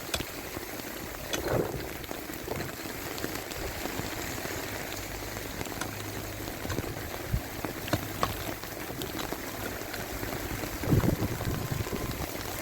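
Steady heavy rain falling, with many scattered drips and two louder knocks, one about a second and a half in and one near the end.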